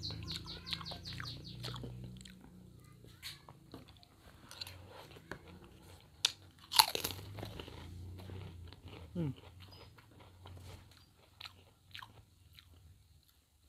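Close-up crunching and chewing of lotek, Javanese vegetables in peanut sauce served with krupuk crackers. Sharp crunches come at uneven intervals, the loudest about seven seconds in.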